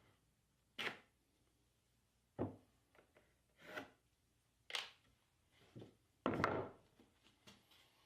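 Wooden boards being handled and set down: about six separate knocks and clatters of timber, the longest and loudest about three quarters of the way through.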